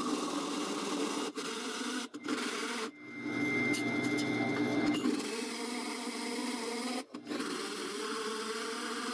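Hole saw grinding its way through a steel plate, a steady rasping cut under a running spindle, broken off briefly a few times.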